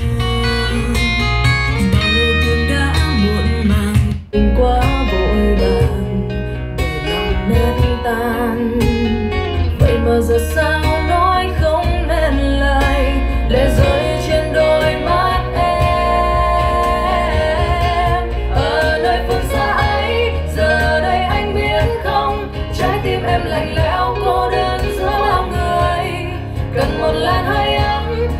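Pop ballad music with guitar and a singing voice, with a brief break about four seconds in.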